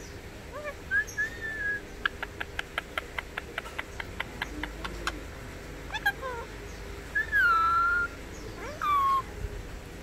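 Indian ringneck parakeet giving short, gliding squawks and whistled calls, the longest a falling call near the end. In the first half there is a quick, even run of clicks, about five a second.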